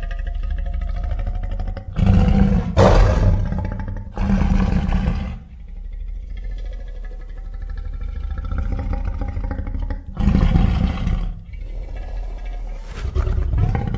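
Monster roar sound effects for a giant ape creature, built from animal and film-monster roars. Low, pitched growling is broken by loud, harsh roars: three close together in the first half, another about ten seconds in, and one more near the end.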